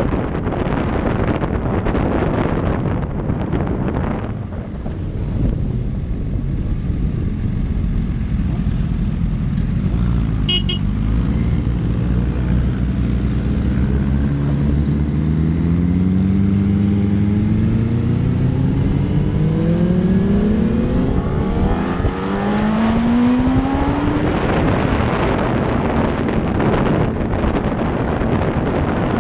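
Wind rushing over a motorcycle helmet camera at speed, then a Yamaha R1's inline-four engine rising in pitch through four gear pulls as the bike accelerates, with wind noise taking over again near the end. A brief high beep sounds about ten seconds in.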